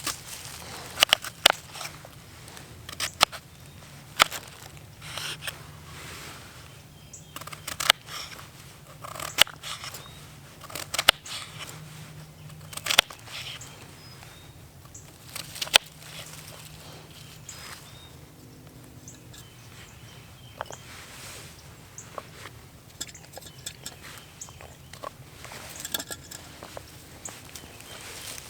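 A series of sharp, irregular knocks and clicks, about one every one to two seconds, thinning out to faint scattered ticks after about sixteen seconds, over a faint steady low hum.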